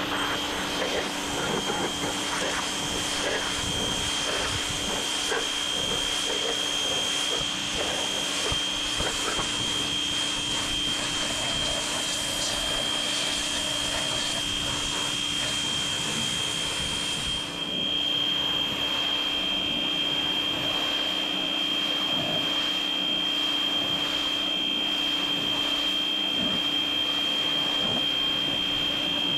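Pressure washer running: a steady motor whine under the hiss of the high-pressure water jet spraying against a pickup's sheet-metal body panels, with one brief dip partway through.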